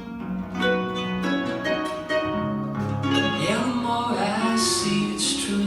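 Live acoustic song: acoustic guitar playing under a sung vocal phrase, between lines of the chorus.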